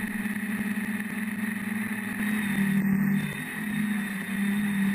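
A multirotor quadcopter's electric motors and propellers in flight, a steady buzzing hum that wavers slightly in pitch and loudness as the throttle changes.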